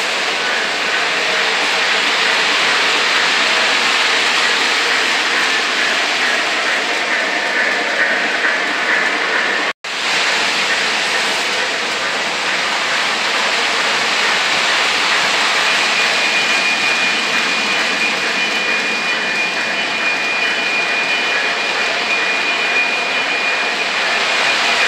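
O gauge model trains running on three-rail track: a steady rolling rumble of wheels and locomotive motors. The sound cuts out for an instant about ten seconds in, and from about two-thirds of the way through a steady high tone rides over the rumble.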